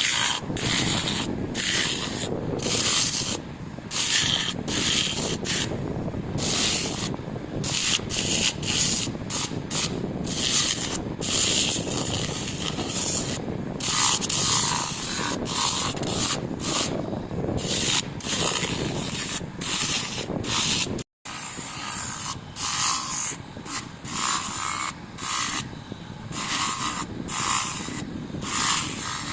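Sandpaper rubbed by hand over a metal motorcycle footpeg in repeated back-and-forth rasping strokes, about one to two a second, with a brief break about two-thirds through.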